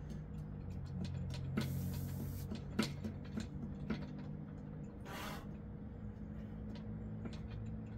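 Metal dip station clicking and knocking as it rocks on uneven ground under a man doing slow dips, with a few sharp breaths between reps. A steady low hum runs underneath.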